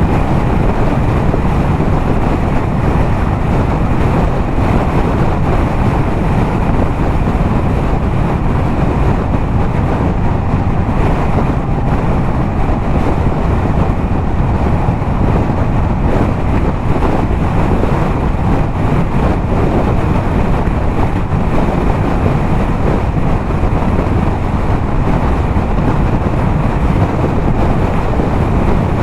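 Yamaha MT-07 parallel-twin engine with a LeoVince exhaust, cruising at a steady highway speed, mixed with heavy wind rush on the helmet-mounted camera's microphone.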